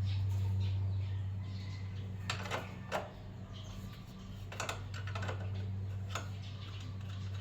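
A hand wrench clinking and tapping on the chain adjuster lock nut of a motorcycle's rear axle as the nut is loosened: a handful of separate sharp metal clicks, spread out with pauses, over a steady low hum.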